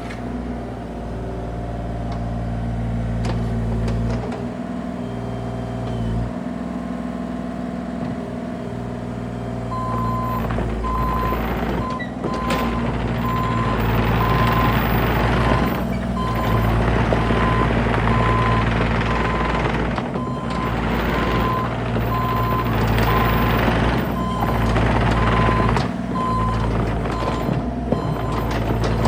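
Bobcat E35 mini excavator's diesel engine running steadily under load. About a third of the way in, its travel alarm starts beeping at an even pace over a rising hiss of the hydraulics, the sign of the machine tracking.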